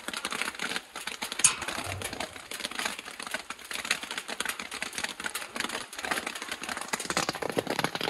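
Raindrops tapping on an umbrella overhead: a dense, irregular ticking, with one sharper click about a second and a half in.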